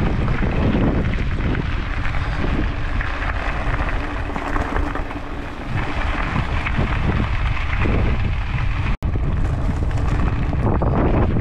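Wind buffeting an action camera's microphone, a steady low rumble over the noise of mountain-bike tyres rolling on loose gravel. The sound drops out for an instant about nine seconds in.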